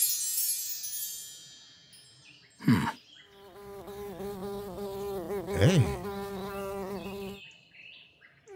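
Cartoon sound effects: a bright shimmering ring at the start fades out, and a short whoosh follows. Then a fly buzzes for about four seconds, its pitch wavering, with a quick swooping glide in the middle.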